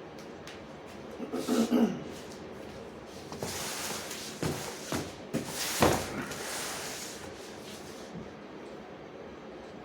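Rustling and handling noises with a few sharp knocks and clicks, typical of a boxed tool set being moved and opened. There is a short burst about a second in, then a longer stretch of rustling and knocks from about three seconds in, the loudest knock near six seconds.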